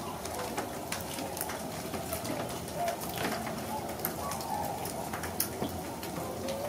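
A distant flock of waterfowl calling, a steady mix of overlapping honks and hooting calls, with scattered faint ticks.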